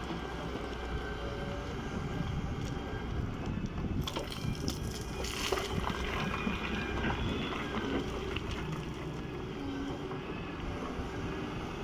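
Doosan excavator's diesel engine running steadily, with a run of clanks and scraping about four to six seconds in.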